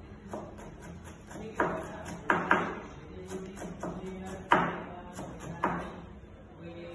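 Knife chopping green vegetables on a plastic cutting board: irregular knocks of the blade against the board, with a few louder chops among lighter taps, over a steady low hum.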